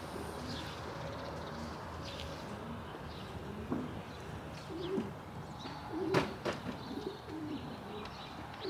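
Racing pigeons cooing: a few short, low coos, with two sharp clicks in the middle.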